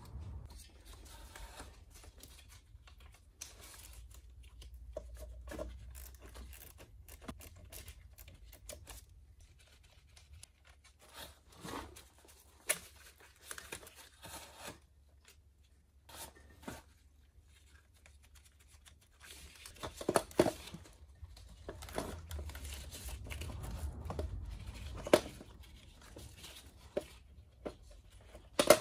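Scattered clicks, taps and rustling from hand work, with a few sharper knocks, busiest and loudest in the second half.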